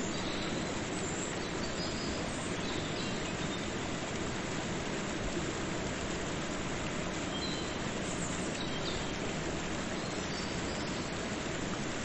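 Steady rushing of a waterfall and river, an even roar of falling water with no change in level. A few faint, short high chirps sound over it now and then.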